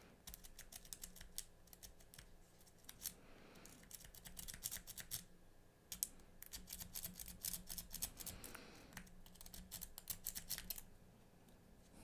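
Lock pick and tension wrench working the pin tumblers of a Master Lock 150 padlock: quick, faint metallic clicking and scraping as the pick moves the pins, in spells with short pauses.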